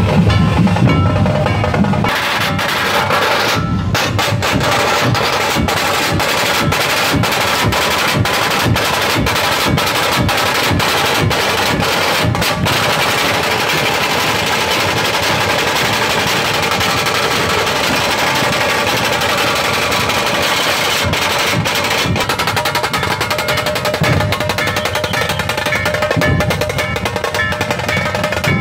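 A dhol-tasha drum troupe playing loudly. Small tasha kettle drums beat fast, continuous stick rolls over deep beats from large two-headed dhol barrel drums.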